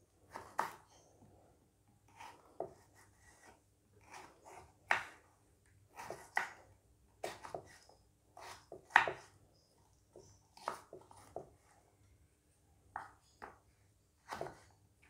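Kitchen knife cutting green tomatoes on a wooden cutting board. The blade knocks against the board irregularly, about one or two short knocks a second, with short pauses between them.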